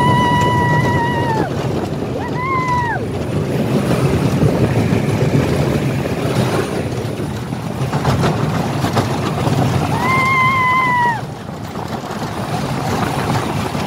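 Mine-train roller coaster running along its track with a steady rumble. Over it, a rider gives long, high, held screams three times: twice in the first three seconds and once about ten seconds in.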